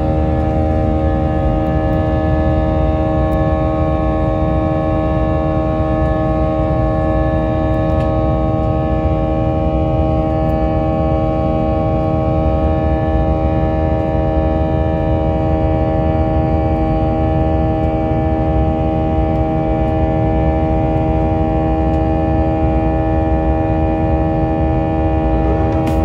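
Jet airliner's turbofan engine heard from inside the cabin during the climb after takeoff: a loud, steady roar with several steady humming tones held throughout.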